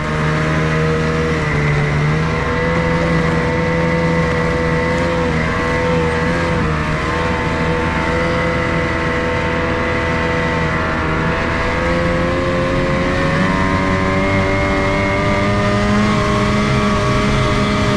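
Snowmobile engine running steadily under throttle as the sled rides along, its pitch wavering a little and shifting about thirteen seconds in.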